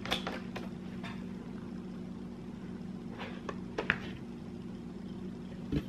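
Light clicks and taps of a hard plastic laptop shell being handled and fitted onto a laptop, a handful of them spread out, the sharpest about four seconds in and just before the end, over a steady low hum.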